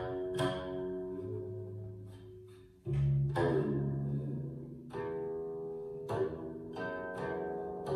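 Guqin, the seven-string Chinese zither, played solo: plucked notes that ring on and slowly die away, a new attack every second or so. The loudest is a low note about three seconds in.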